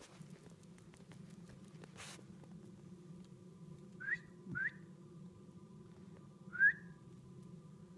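Three short rising whistles. Two come close together about four seconds in, and a louder third comes about two seconds later.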